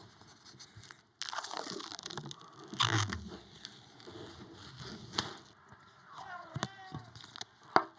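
Rustling and crackling of packaging as a PC case is handled and unpacked, with a few sharp knocks.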